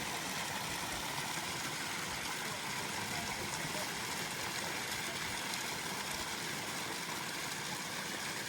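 Waterfall on a mountain stream, rushing water making a steady, even hiss.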